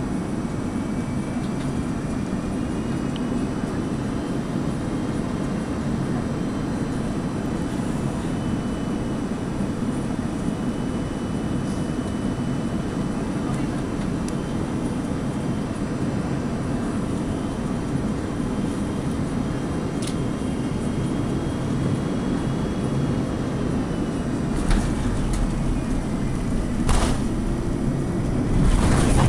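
Steady cabin noise inside an Airbus A330-200 on final approach: engine and airflow rumble with a faint whine that drifts slowly in pitch. Near the end come a few knocks and a louder, deeper rumble as the aircraft comes down onto the runway.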